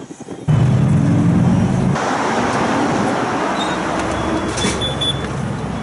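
A car running at low speed: a steady engine hum that starts suddenly about half a second in, then a broad rushing noise.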